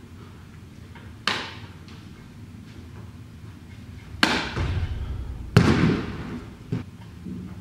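Man bouncing on a slackline over crash mats: sharp slaps of feet and line, one about a second in, then two loud ones about four and five and a half seconds in with a low rumble between them.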